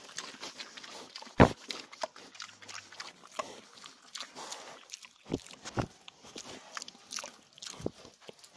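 Animal sounds, irregular and scattered, with several sharp thumps; the loudest thump comes about a second and a half in.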